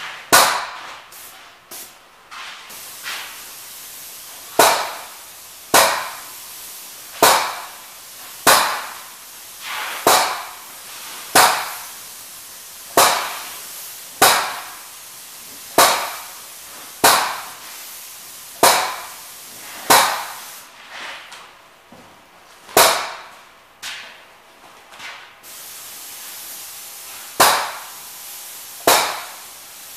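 Paint spray rig applying primer: a steady spraying hiss with a sharp, regular pulse about every second and a half. The hiss thins out and the pulses stop for a few seconds about two-thirds of the way through, then resume.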